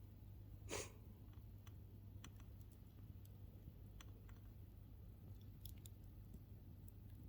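Campfire burning quietly, wood giving off sparse small pops and crackles, with one louder crackle about a second in.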